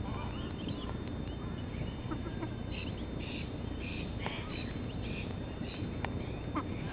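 A flock of ducklings peeping, many short high calls overlapping, busiest through the middle, with a few light clicks mixed in.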